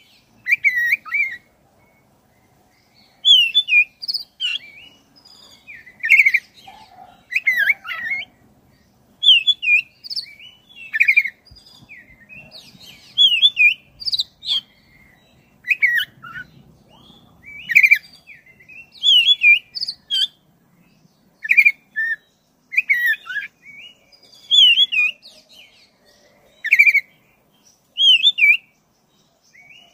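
Black-breasted oriental magpie-robin singing: short phrases of quick up-and-down notes, repeated about every one to two seconds.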